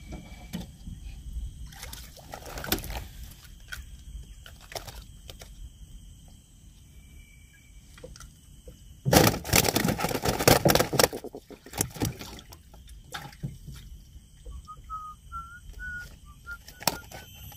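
Water splashing and sloshing, with scattered knocks and a loud burst of splashing about nine seconds in that lasts around two seconds.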